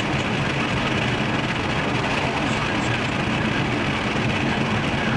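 Steady road and engine noise inside the cabin of a Pontiac Sunfire driving at speed, an even drone with no sudden events.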